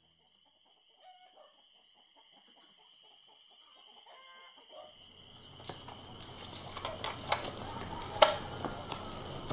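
Outdoor ambience with a steady high-pitched drone and a few faint bird calls. From about five seconds in it grows louder, with the scattered steps of several people walking over leaves and twigs.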